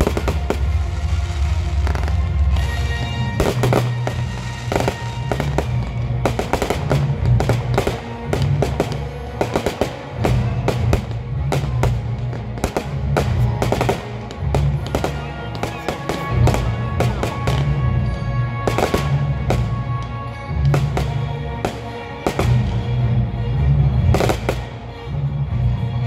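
Fireworks display: many sharp bangs and crackles from bursting shells in quick succession, over loud music with a pulsing bass.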